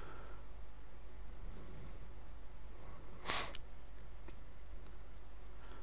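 A short, sharp sniff through the nose about three seconds in, over a steady low electrical hum.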